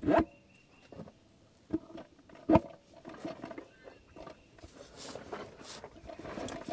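A loud short sound right at the start, then a few separate knocks and a run of light scraping and clattering: a 4L60E torque converter being slid and turned onto the transmission's input-shaft splines to seat it.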